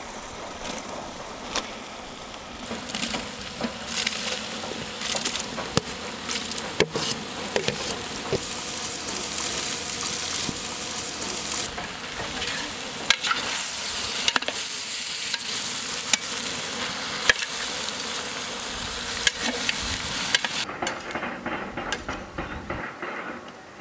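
Freshly added chopped tomatoes sizzling in butter and oil in a large metal pot, stirred with a metal ladle that scrapes and clicks against the pot. The sizzle dies down about three seconds before the end.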